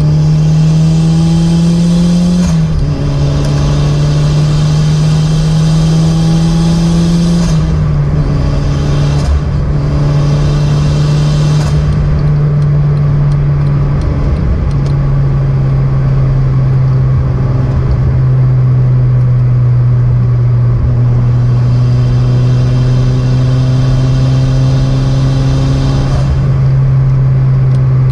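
Turbocharged car engine heard while driving, climbing in pitch under acceleration and dropping at two gear changes, then running steadily at cruise before another pull builds near the end. A high turbo whistle rides over the engine during the pulls.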